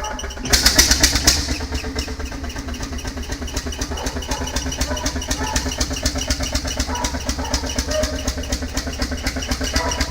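Old engine running with an even, regular firing beat. A loud burst of noise about half a second in lasts about a second.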